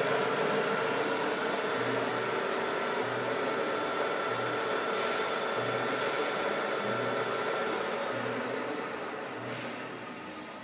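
Spindle of a Millport Rhino I CNC vertical mill running during a program: a steady whirring hum with a thin high whine that fades out about eight seconds in. The whole sound dies away gradually near the end.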